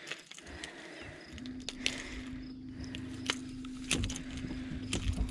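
A boat motor hums steadily from about a second in, over a low rumble, with scattered sharp clicks and knocks as a small bass is handled and unhooked from a crankbait.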